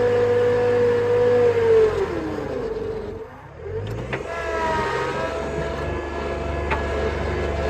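Tractor engine running while pulling a box blade. About two seconds in its pitch sags and it fades, then it picks back up about a second later and runs steady again.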